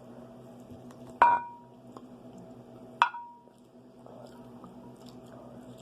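Two sharp knocks about two seconds apart, each with a brief ringing tone, from a hard object striking a hard surface. A faint steady hum runs underneath.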